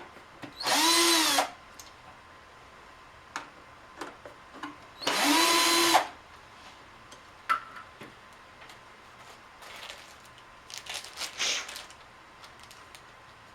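Cordless power screwdriver running twice for about a second each, backing out screws. Each time the pitch rises as the motor spins up and falls as it stops. Softer clicks and rattles follow near the end.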